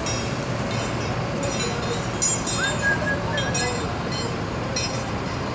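Steady low rumble of heavy machinery running, broken by several short, high-pitched metallic squeals and a brief whistle-like tone a little before the middle.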